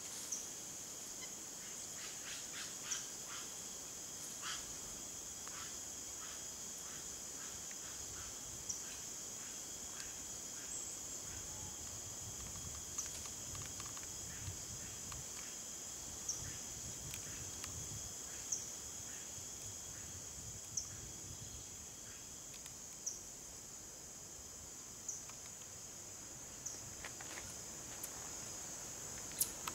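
Forest ambience: a steady, high-pitched shrill of insects, with short, sharp, high chirps repeating about every two seconds and a few soft clicks.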